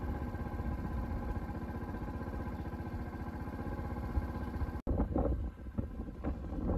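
Motorcycle engine running steadily while riding. A little under five seconds in it cuts off abruptly and gives way to gusty wind noise on the microphone.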